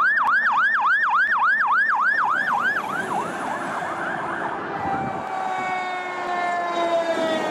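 Fire engine siren on the fast yelp setting, rapid rising-and-falling whoops at about four a second that fade after about three seconds, then a lower tone that slowly falls in pitch.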